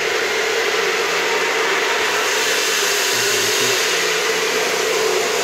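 Large 1.4-metre box-type exhaust fan running: a loud, steady rush of air with a steady hum underneath.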